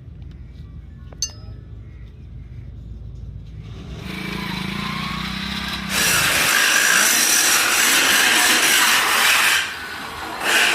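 Metal being worked on a steel wrench: a single metal clink, then a tool running up and a loud, harsh rushing noise for about three and a half seconds, with a shorter burst near the end.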